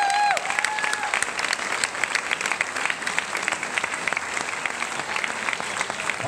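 Audience applauding: dense, steady clapping from many hands, with a few long held tones fading out in the first second.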